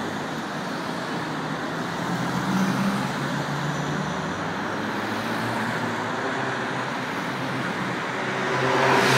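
City road traffic: cars driving past on a wide avenue, growing louder near the end as vehicles and an articulated Schindler Waggon Be 4/6 tram draw near.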